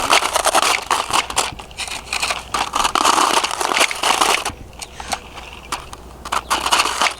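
Plastic Bruder JCB toy backhoe bucket scraping and digging through dirt: gritty crunching and crackling, easing off for a couple of seconds past the middle before picking up again.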